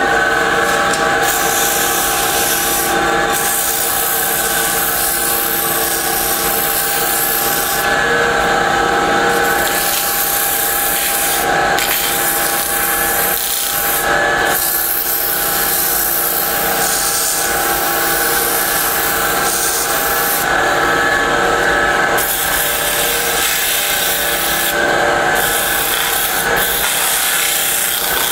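220-grit sandpaper held by hand against a bocote pendant spinning on a wood lathe, a steady rubbing hiss over the constant hum of the lathe's motor. The hiss drops out briefly a few times while the motor runs on.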